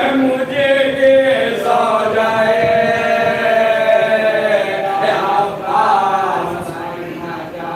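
Group of men chanting a marsiya, the Urdu elegy recited in Muharram, unaccompanied, with long held notes in the middle.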